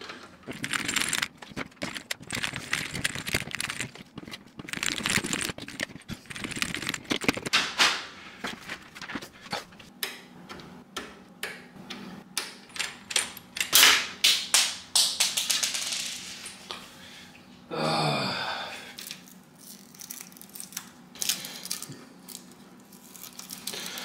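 Screws being undone with a screwdriver inside a PC case, with scattered clicks, taps and small metallic rattles as screws and cables are handled. A brief voice sound comes about three quarters of the way in.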